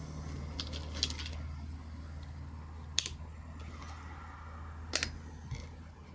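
A few sharp clicks from handling the Reximex Throne Gen 2 PCP air rifle between shots: a quick cluster about a second in, then single clicks about three and five seconds in, over a low steady hum.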